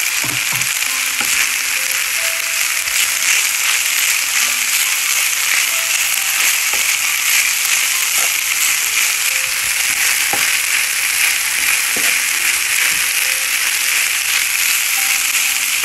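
Boiled long-grain rice sizzling steadily as it fries in olive oil in a pan, stirred with a wooden spoon, with a few faint ticks from the stirring.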